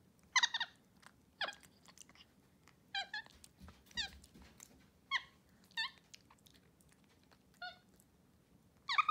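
White-faced capuchin monkey giving a string of short, high-pitched squeaky calls, about one a second, while it feeds.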